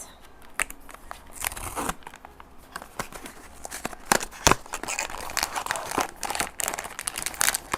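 Packaging of a Pop Mart blind-box figurine being opened by hand: plastic wrapping crinkling and tearing, with many sharp clicks and snaps, the loudest about four and a half seconds in.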